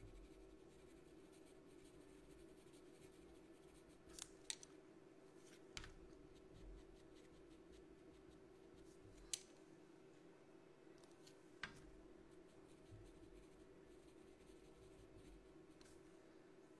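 Near silence: faint strokes of a pastel pencil on paper over a steady low hum, with a handful of small sharp clicks spread through the middle.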